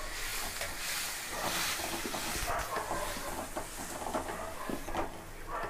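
Chopped tomatoes sizzling in hot oil among sautéed onions, the hiss strongest in the first couple of seconds after they go in, while a wooden spatula stirs and scrapes them around the metal pan with scattered small knocks.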